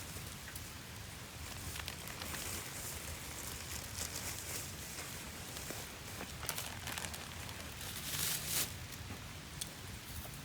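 Campfire crackling: scattered sharp pops over a steady hiss, with a louder hissing swell about eight seconds in.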